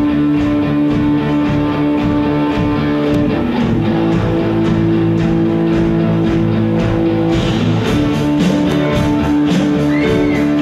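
Live rock band playing with electric guitars, a keyboard and drums, holding long sustained notes; the sound turns brighter about seven seconds in.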